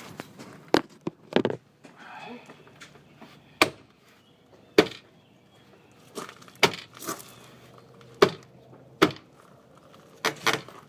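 Hands slapping the plastic housing of a 2006 Ford F250 side mirror, pressing it together so its clips snap into place: about ten sharp smacks at uneven gaps.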